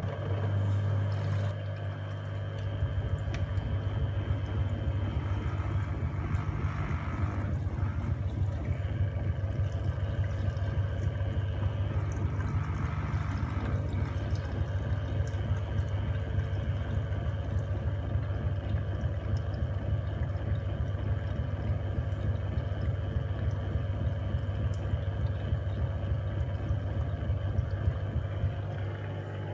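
Gorenje WA73161 washing machine running its test wash: water rushing through the machine over a steady low hum.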